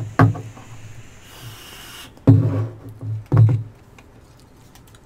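Men vaping: a soft breathy hiss of vapour being exhaled, about a second and a half in, among three short, loud throat noises.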